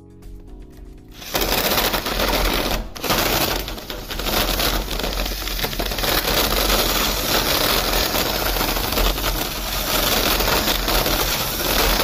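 Cordless drill driving a spade bit, boring a hole into the edge of a door. It starts about a second in, eases off briefly near three seconds, and runs loud and steady after that.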